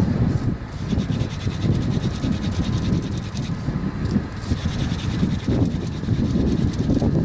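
Hand drill for friction fire: a wooden spindle spun back and forth between the palms, scratching and rubbing in the socket of a wooden hearth board, with the hands rubbing on the shaft. A low rumble of wind on the microphone runs under it.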